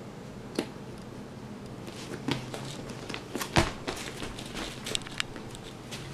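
Cardboard jigsaw puzzle being handled on a wooden floor: a handful of scattered taps and knocks, the loudest about halfway through, over a faint steady low hum.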